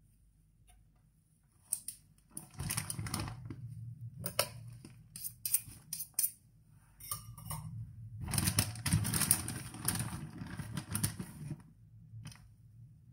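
Rustling, light clicks and scrapes as gloved hands handle the baking paper, the cheese and the utensils while topping a pizza. The sound comes in two longer stretches, a short one a few seconds in and a longer one past the middle, with scattered sharp clicks between them.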